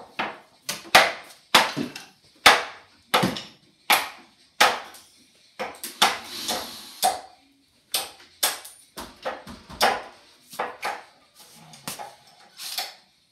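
Repeated heavy knocks on the big-screen TV's cheap wooden cabinet panels as it is broken apart: about twenty sharp blows at an uneven pace, roughly one or two a second.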